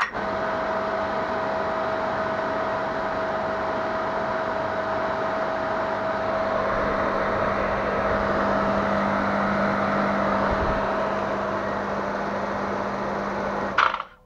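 Single-phase capacitor-run induction motor switched on, spinning up at once and running with a steady hum and the whoosh of its cooling fan, with a slight bearing noise that the owner puts down to debris lodged in the front bearing. It cuts off abruptly near the end when the power is removed.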